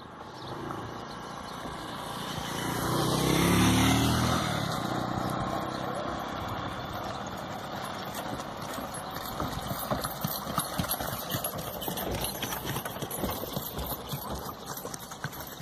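A motor vehicle drives past, loudest about four seconds in, its engine note falling as it goes. After it, a dense run of irregular clicks and knocks from the animals grazing on the road.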